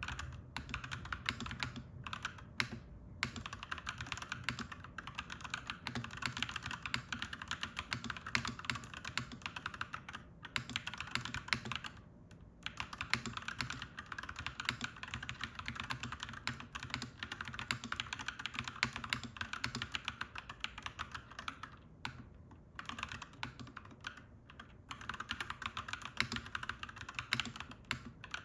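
Continuous typing on a clacky mechanical keyboard: a dense, uneven run of key clicks. The typing pauses briefly about twelve seconds in and again around twenty-two seconds.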